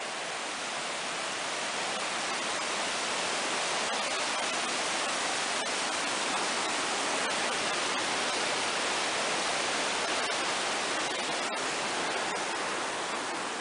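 Fast mountain creek rushing through white-water rapids over rocks: a steady, even rush of water.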